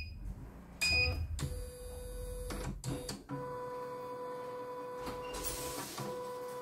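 CNY computerized embroidery machine starting up: a short electronic beep about a second in, then a steady electric whine from the machine, with a higher tone joining a few seconds in, broken by a few brief clicks.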